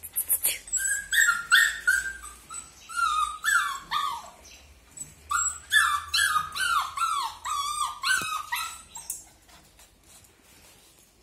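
Cocker spaniel puppies whining and yipping: a rapid string of short, high cries that slide down in pitch, several pups overlapping, dying away about nine seconds in.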